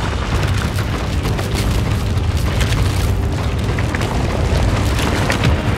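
Rockfall from a collapsing volcanic lava dome: a steady deep rumble of tumbling hot rock with many crackles and knocks on top. It is the onset of a pyroclastic flow.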